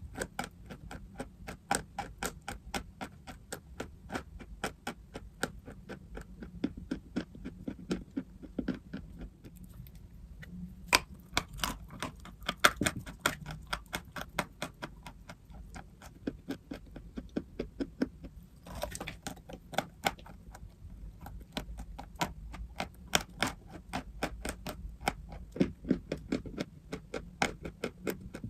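Dry chalk crunching in rapid, irregular crackles, with a few short pauses, over a faint steady low hum.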